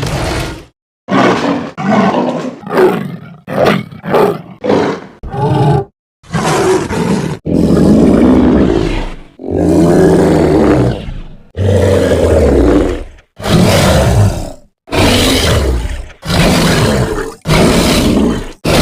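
A series of monster roars and growls, each separated by a brief silence: short, quick ones in the first few seconds, then longer ones of one to two seconds each.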